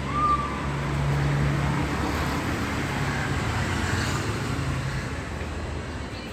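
A motor vehicle running close by: a steady engine hum with road noise that swells over the first few seconds and then slowly fades.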